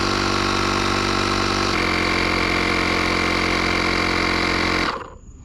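ShockFlo cordless portable tire inflator's compressor running steadily while pumping up an SUV tire, its tone shifting slightly about two seconds in. It stops abruptly near the end.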